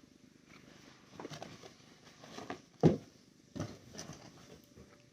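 A few irregular short taps and knocks, the loudest about three seconds in, over quiet room noise.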